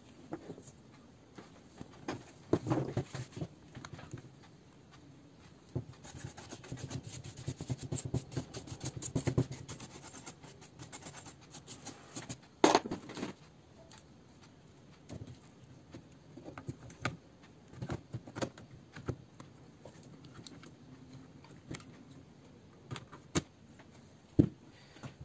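Hands handling a Dell Inspiron 14 3442 laptop's motherboard and plastic base chassis as the board is fitted into the base. There is irregular scraping and rustling, one sharp knock about halfway through, and scattered clicks and taps.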